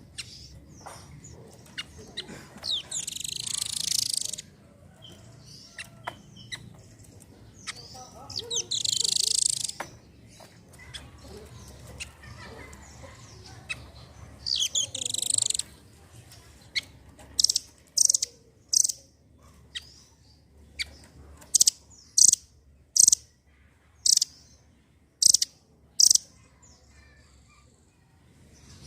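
Blue nuthatch calling: three short bursts of rapid high chirping trills, then from about halfway a run of sharp, loud single notes roughly once a second.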